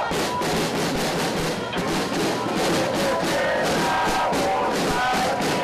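Protest crowd chanting and shouting over a group of snare drums beating a steady rhythm.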